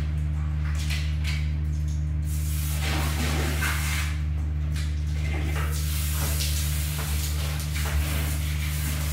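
Water spraying in hissing bursts from a handheld bidet sprayer as a toilet bowl is rinsed, over a steady low hum.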